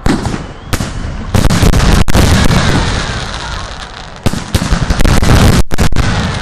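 Aerial firework shells bursting overhead in quick succession. Several sharp bangs, at the start, about a second in and again about four seconds in, with crackling and rumbling between.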